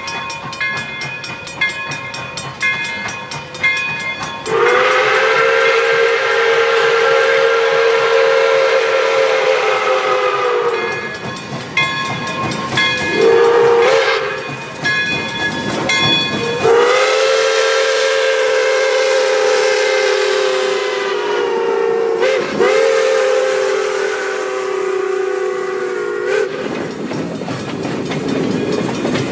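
Steam chime whistle of Pere Marquette 1225, a Berkshire steam locomotive, blowing a long blast, a short toot, then a second, longer blast.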